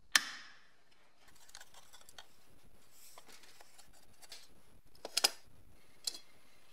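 Flat-blade screwdriver prying at an old painted metal case: a sharp metallic snap with a short ring just after the start, then a quick cluster of clicks about five seconds in and one more click a second later.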